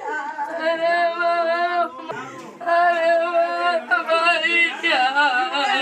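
Voices singing in long, wavering held notes, phrase after phrase with short breaks between them.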